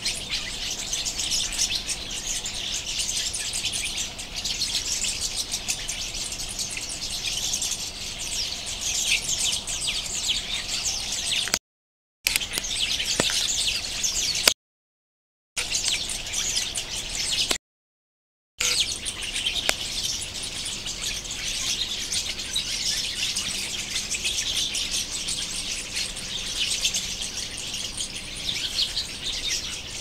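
A flock of small birds chirping densely and continuously from a tree, many calls overlapping in a high chatter. The sound drops out to silence three times, about a second each, in the middle.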